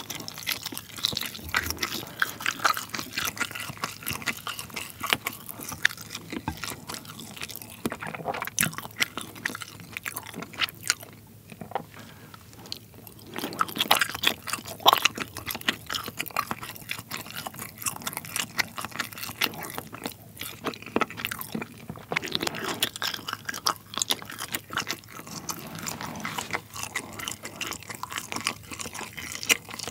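Close-miked chewing of colored pull-apart string cheese, full of wet mouth clicks and smacks, with a quieter lull about eleven seconds in before a fresh bite.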